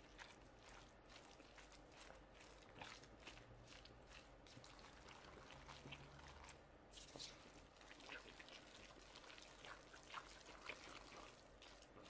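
Faint wet squelching and small clicks of a silicone spatula stirring minced chicken, grated zucchini, carrot and raw egg together in a wooden bowl.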